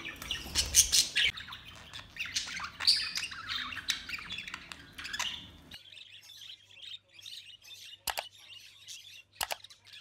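Pet budgies chirping and warbling in high, rapid notes, with sharp clicks among them. About six seconds in the chirping drops to a fainter level, and two separate sharp clicks come near the end.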